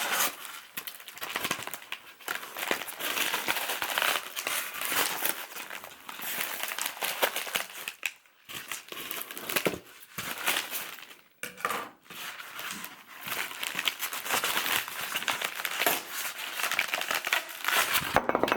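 Packing wrap crinkling and rustling as it is handled by hand, nearly continuous with a few short pauses midway.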